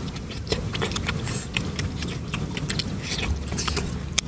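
Someone eating grilled chicken: chewing, lip smacks and meat being torn from the bone, heard as an irregular run of short wet clicks over a low steady hum.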